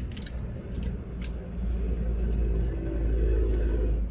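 Low vehicle rumble heard inside a car cabin, swelling louder in the second half, with scattered light clicks and crinkles from a paper burger wrapper and eating.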